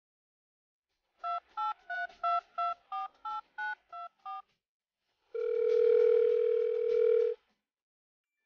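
Telephone keypad touch-tones: eleven quick dialing beeps, each a different two-note pitch, followed by one steady ring of a call's ringback tone lasting about two seconds. This is a dubbed phone-dialing sound effect timed to a thumb pressing a dog's paw pads as if they were buttons.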